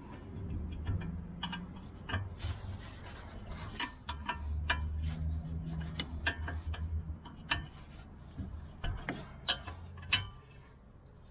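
Hand tools working on a car's disc brake caliper: a metal wrench and flat blade scraping and clicking against the caliper and its bolt. The clicks and scrapes are irregular, over a low rumble.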